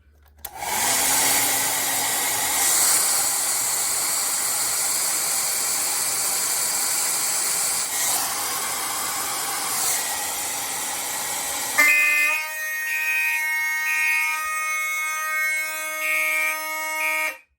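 Fire alarm horns sounding steadily under the panel's walk test: a harsh, noisy horn sound first, then about 12 seconds in a different horn with a steady pitched tone takes over and cuts off abruptly near the end.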